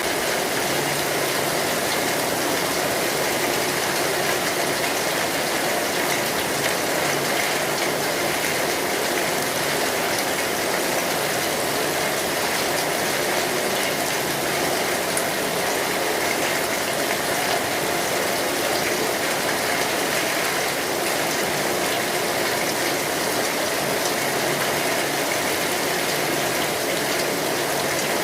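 Steady, heavy rain on a metal roof, a dense, even patter with no let-up.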